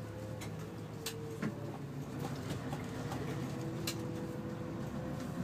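Inside a Neoplan N116 Cityliner bus on the move: its Mercedes V8 diesel engine runs steadily at low revs, with a thin whine over the drone. A few short sharp rattles and clicks come from the bodywork and fittings.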